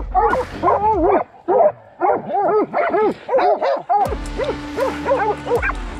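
Hog-hunting dogs barking and yipping in quick succession, several short calls a second, more than one dog at once. A steady low hum joins about four seconds in.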